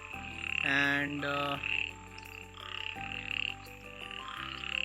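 Chorus of frogs calling on a rainy night, short high calls repeating two or three times a second from several animals at once.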